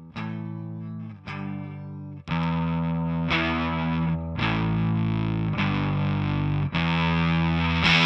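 Electric guitar played through a Catalinbread Rah overdrive pedal, sustained chords struck about once a second. The first two chords are lighter and cleaner; from about two seconds in the playing turns louder and more heavily distorted.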